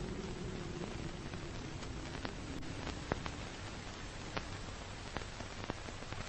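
Steady static hiss with scattered crackling clicks, about one a second: the surface noise of an old-film-style soundtrack.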